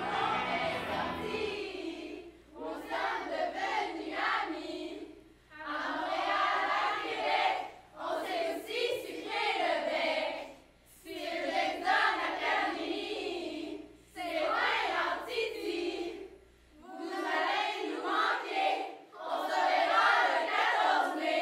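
A group of teenage girls singing together in unison, in repeated phrases of about two seconds with short gaps between them.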